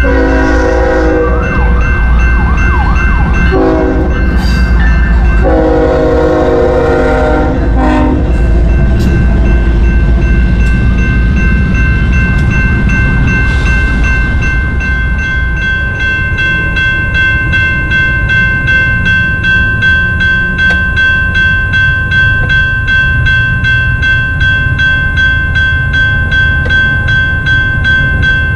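Locomotive air horn sounding several long blasts in the first eight seconds, over the heavy low rumble of the train and the steady ringing of the grade-crossing bell. After the horn stops, the rumble and bell go on with a fast, even clatter from the train.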